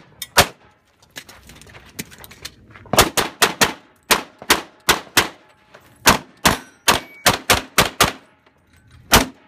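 A rapid string of semi-automatic pistol shots, mostly fired in quick pairs with brief pauses between groups as the shooter moves from target to target.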